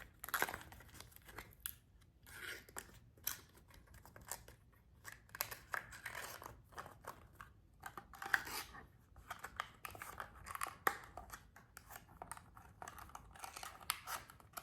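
Miniature paperboard toy sugar-cube box being folded and assembled by hand: an irregular run of small creasing clicks and papery rustles and scrapes of the cardboard flaps.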